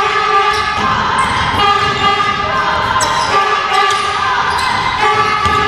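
A basketball bounces on a wooden gym floor during play, a few sharp thuds, while voices call out throughout in a large echoing hall.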